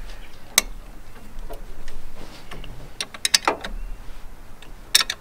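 Hand tools on the alternator mounting bolts: a few sharp metallic clicks and clinks, one about half a second in, a quick run of clicks around three seconds in, and another near the end, as the adjuster nut and bolt are worked loose.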